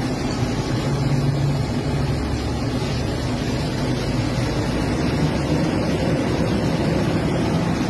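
A car on the move: steady road and wind noise with a low rumble, and no brake squeal.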